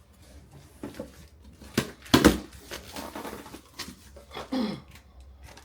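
Knocks and clatter of office chair parts being handled and fitted together during assembly, a handful of separate strikes with the loudest about two seconds in.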